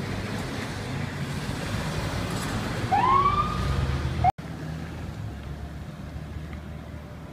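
Fire department ambulance driving by on an emergency run: engine and road noise, then about three seconds in a loud rising siren sweep lasting about a second, with a second sweep starting just as the sound cuts off. After that, quieter engine and traffic noise.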